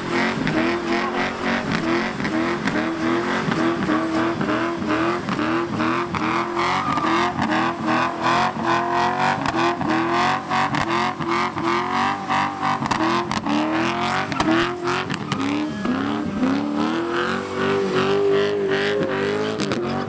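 Drift car engine held at high revs while the car spins in circles, the pitch repeatedly dropping and snapping back up against the rev limiter. Tyres spin under it with a steady hiss.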